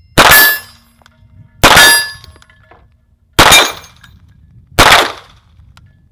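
Four 9 mm pistol shots from a Walther PPQ Navy SD, fired slowly about one and a half seconds apart, each sharp crack followed by a brief ringing tail. They are the last rounds of the magazine.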